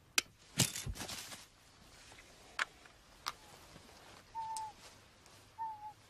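A radio-fired eagle trap springing: a sharp snap, then a rustling clatter and a couple of sharp ticks as it closes over the bird. Near the end come two short, slightly falling whistled bird calls.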